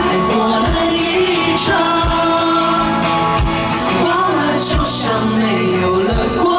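A woman singing live into a microphone over a rock band, her voice gliding and holding notes above sustained chords. Low thumps from the beat come about every second and a half.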